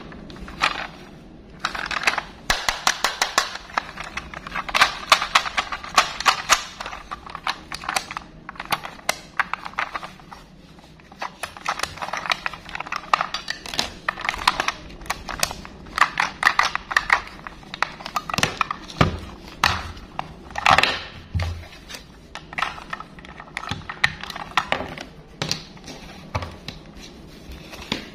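Hard plastic toy train handled and turned over, with a dense run of quick clicks, taps and rattles as its battery compartment is worked, and a few heavier knocks about two-thirds of the way through.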